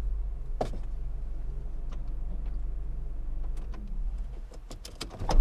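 A steady low rumble with scattered clicks and knocks over it, the sharpest one just under a second in.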